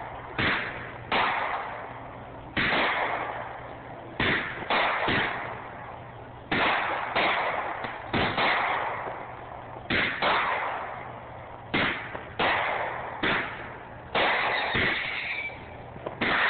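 Aerial firework shells bursting overhead in quick succession: about fifteen sharp bangs at uneven intervals, each trailing off in a rolling echo.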